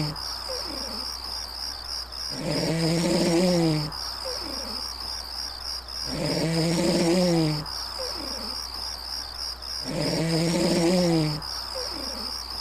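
A red deer stag roaring in the September rut: three long, deep calls about four seconds apart, each dropping in pitch at its end. Crickets chirr steadily underneath.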